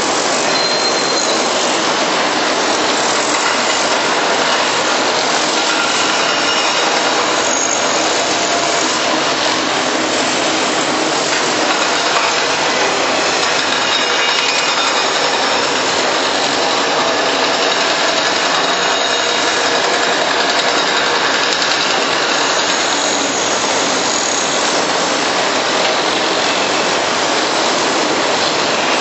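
Steady, even rushing noise of construction-site machinery, with no clear engine beat.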